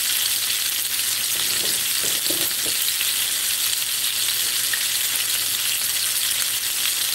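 Battered onion rings deep-frying in hot oil in a cast-iron skillet: a steady sizzle.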